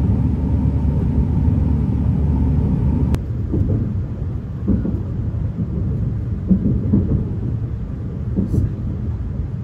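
Passenger train running, heard from inside the carriage as a steady low rumble. About three seconds in it changes to a rougher, uneven rumble with light knocks.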